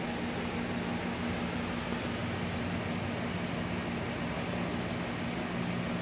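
Tempstar central air-conditioner condenser unit running: the top-mounted fan rushing air through the coil, with a steady low hum underneath.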